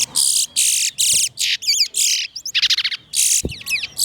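Towa-towa (chestnut-bellied seed finch) singing a fast, unbroken run of high chirps and trills in short back-to-back phrases.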